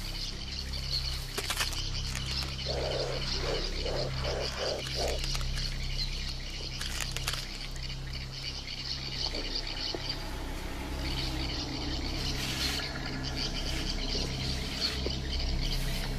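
Natural wetland ambience with a steady chorus of frog-like calls, a low hum underneath, and a run of about six low pulsing calls a few seconds in.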